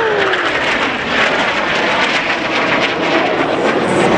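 Jet engines of a formation of aerobatic display jets passing, a loud steady rush of engine noise, with a whine that falls in pitch during the first half second as the jets go by.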